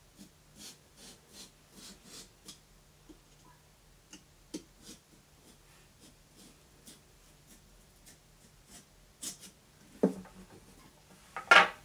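Kitchen knife sawing through pumpkin rind in short, faint strokes, about two or three a second at first and sparser later, cutting out a round eye. Near the end come two louder knocks and rustles as the carved pumpkin is handled.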